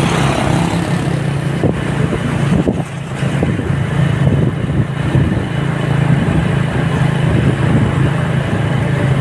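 Steady low engine hum with road and wind noise from a vehicle moving along a town street, among passing motorcycles and cars.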